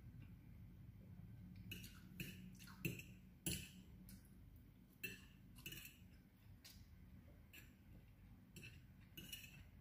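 Metal fork clinking and scraping on a ceramic plate in faint, irregular taps, the loudest around three seconds in.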